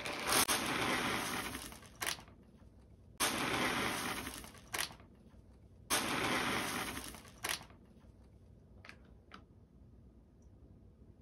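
Dry cat kibble poured from a foil bag into a bowl in three long pours, each a dense rattle of pellets heaping up and spilling over, ending with a sharp click. After the pours it goes quiet apart from a couple of faint ticks.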